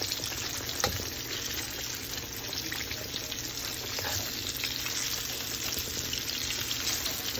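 Breaded green tomato slices frying in shallow oil in a skillet: a steady sizzle with fine crackling. A single light knock about a second in.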